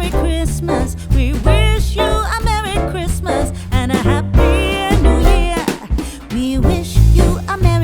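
Background music: a song with a sung vocal over a heavy bass beat.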